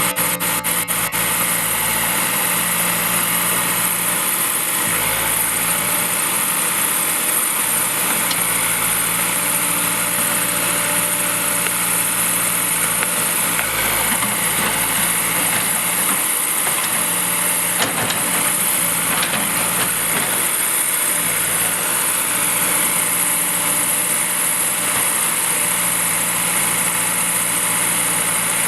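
Diesel engine of a heavy earthmoving machine running steadily at a constant pitch, with a steady high hiss over it.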